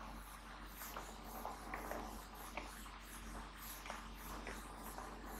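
Handheld whiteboard eraser wiping marker ink off a whiteboard: faint, repeated rubbing strokes.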